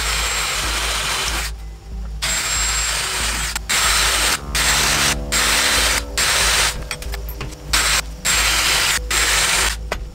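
Cordless drill spinning a stepped drill bit through a thin metal faceplate, running in repeated bursts of about a second each with short pauses between them.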